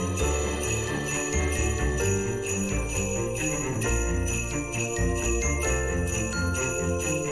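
Background music with jingle bells ringing throughout over pitched melody notes and a changing bass line.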